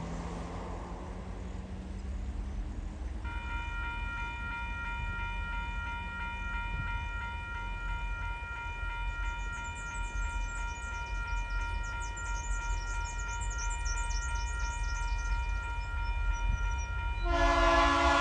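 A level crossing's warning bell starts ringing about three seconds in, a steady electronic ring, over a low rumble. Near the end, TasRail diesel locomotive 2051 sounds its horn loudly as its coal train approaches the crossing.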